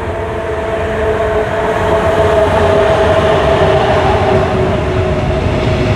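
Regional train of an electric locomotive and double-deck coaches running into the station and slowing to a stop, growing louder as it passes close. A steady two-note whine sinks slightly in pitch as it slows.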